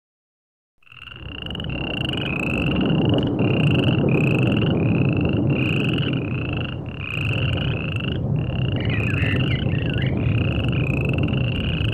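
Frogs calling in a regular series of short, slightly falling notes, about two a second, over a steady low rushing noise. The sound starts suddenly about a second in, and a few curling chirps join near the end.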